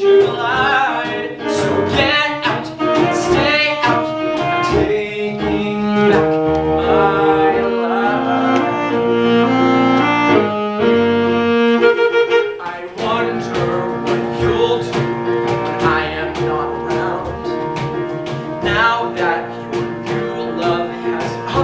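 A small live band (piano, saxophone, guitar and drums) playing an instrumental break in a song, with held notes over a steady drum beat.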